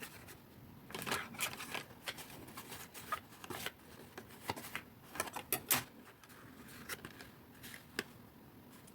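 Light, irregular rustles and taps of cardstock being handled: fingers pressing and moving a small glued paper box.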